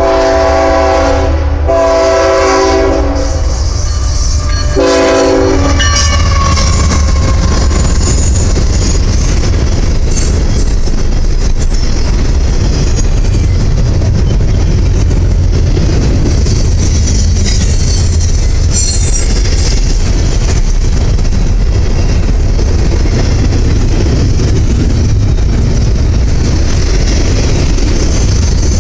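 CSX freight locomotive air horn sounding a chord, one long blast and then a short one about five seconds in. After that comes the steady rumble and clatter of a double-stack intermodal train passing close by, with intermittent high wheel squeal.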